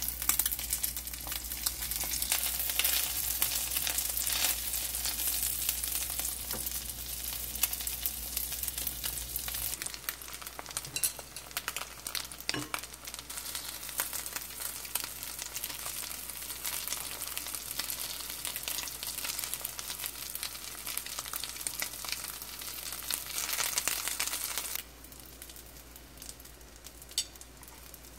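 Egg-and-glass-noodle dumplings sizzling and crackling in hot cooking oil in a frying pan, with a few sharp clicks and pops. The sizzle drops suddenly to a quieter level near the end.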